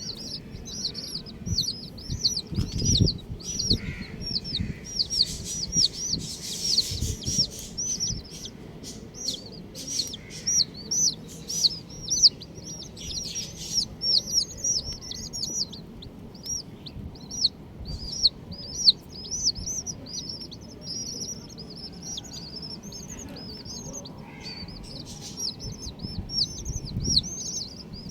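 Baby chicks peeping nonstop, many short high-pitched chirps overlapping, with occasional knocks and thumps.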